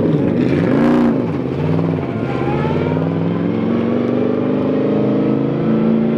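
Rally car engine revving: two quick rises and falls in pitch, then a steadier engine note that climbs slowly.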